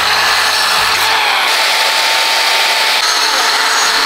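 A power tool running steadily.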